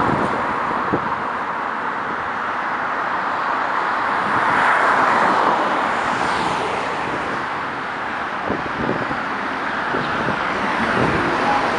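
Steady urban expressway traffic: the tyre and engine noise of a stream of cars passing. The noise swells as one passes louder about four to five seconds in.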